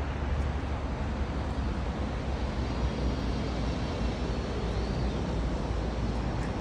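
Steady outdoor background rumble with a hiss, with a faint high chirp about five seconds in.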